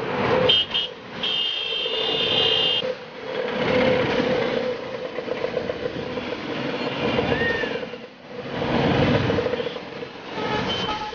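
Auto-rickshaw engine running through heavy street traffic, swelling louder twice as vehicles pass. A high-pitched vehicle horn gives two short beeps, then is held for about a second and a half near the start.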